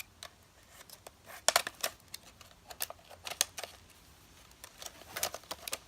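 Stiff plastic packaging being pried and snipped open, with clusters of sharp clicks and snaps about a second and a half in, around three seconds, and again near the end.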